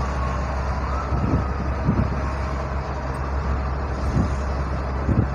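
Delivery vehicle's engine running steadily while driving, with road noise. A faint whine slides down in pitch, jumps back up about a second in, then eases down again, and there are a few dull low thumps.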